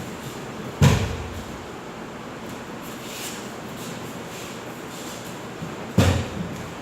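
Two heavy thuds about five seconds apart, each with a short fading tail: a thrown aikido partner hitting the mat in a breakfall.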